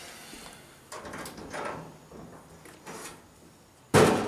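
Metal two-door storage cabinet being opened by hand: several short clicks and scrapes from the latch and doors, then a sudden loud bang about four seconds in.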